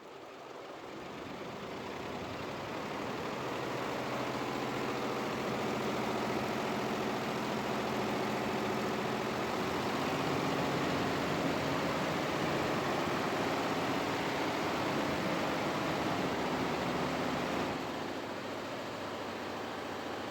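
Multi-head computerized embroidery machine running, a steady mechanical hum with faint steady tones. It grows louder over the first few seconds and drops a little near the end.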